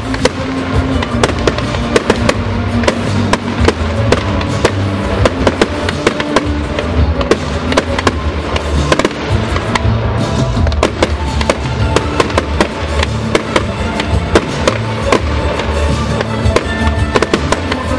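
Aerial fireworks bursting in a rapid, continuous string of bangs and crackles, with music playing underneath.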